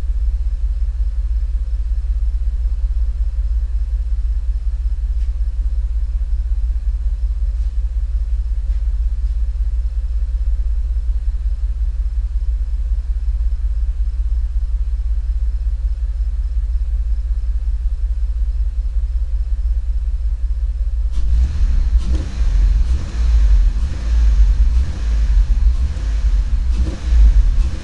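Cadillac STS engine running with a steady low rumble; about two-thirds of the way through it turns louder and uneven. The engine has a misfire, put down to bad piston rings.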